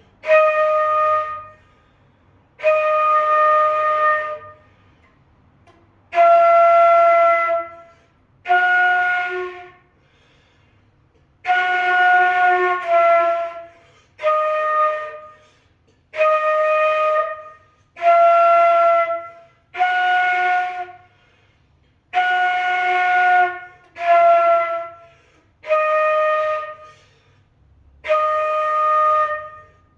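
Flute playing the note D over and over: about fourteen separate held tones of a second or two each, with short breaths between them, as in a learner's tone practice.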